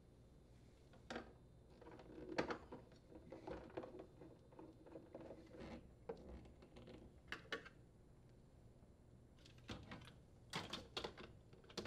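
Faint, scattered clicks and knocks of plastic refrigerator parts being handled and fitted into place, with a louder knock a couple of seconds in and a quick run of clicks near the end.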